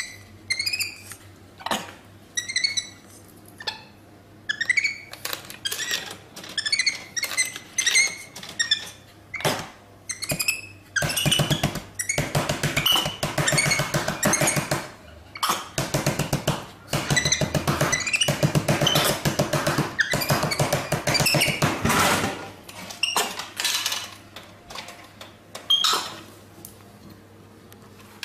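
Capuchin monkey giving repeated short, high-pitched chirping calls, with a louder, dense stretch of noise lasting about ten seconds midway.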